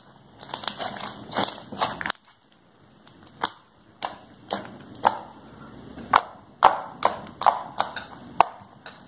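Slime being squeezed and pressed between the fingers, giving sharp wet pops and clicks at irregular intervals as trapped air pockets burst. There is a quieter gap about two seconds in.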